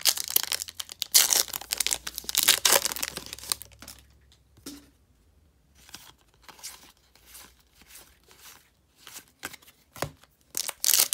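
Foil trading card pack wrapper being torn open and crinkling for about the first four seconds. Then come softer, scattered slides and taps as the cards are flipped through, and a short crinkle of the next pack near the end.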